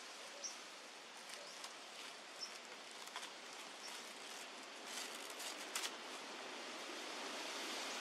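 Steady outdoor hiss with a scatter of faint crackles of dry leaves, the strongest cluster about two-thirds of the way through, as a monkey shifts on a bed of dry bamboo leaves.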